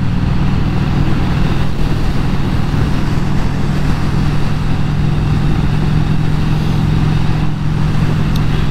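Vincent Rapide Series C 1000cc V-twin engine running steadily while the motorcycle is ridden at an even pace, with no change in engine pitch, over a steady rush of wind and road noise.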